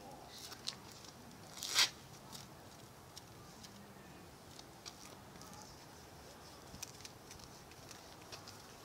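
Faint rustling and scattered small clicks, with one short, sharp rustle about two seconds in.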